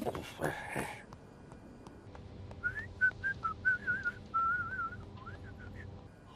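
A person whistling a short tune of quick notes with warbling trills, starting about two and a half seconds in and lasting about three seconds.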